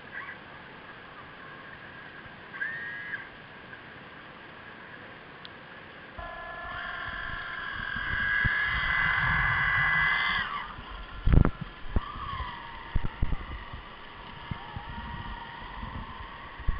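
Electric motor and propeller whine of a radio-controlled model submarine heard underwater: a steady multi-tone whine that grows much louder for about four seconds in the middle as the submarine passes close, then fades. Several dull low knocks follow near the end.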